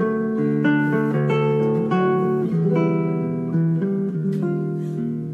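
Background music: a plucked acoustic guitar playing a melody over chords, with quick note changes.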